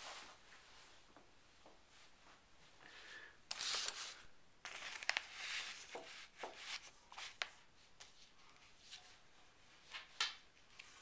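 Clear plastic bags crinkling and rustling as antenna parts are handled, in uneven bursts that are loudest a few seconds in, with a few sharp clicks.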